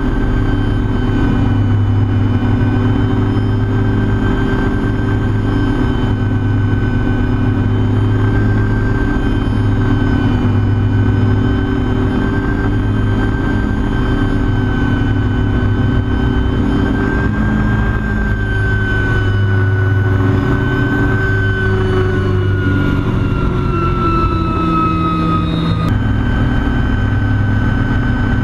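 MD500C helicopter heard from inside the cockpit in flight: the turboshaft engine's steady high whine over the rotor and engine drone. Near the end the whine falls in pitch for a few seconds, then jumps back up abruptly.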